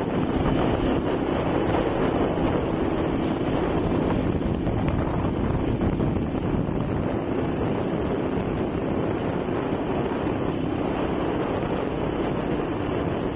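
Steady rush of wind buffeting the microphone of a phone carried on a moving motorcycle, with a faint steady hum from the bike underneath.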